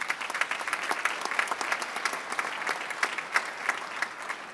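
Audience applauding, many hands clapping at a steady level in an auditorium.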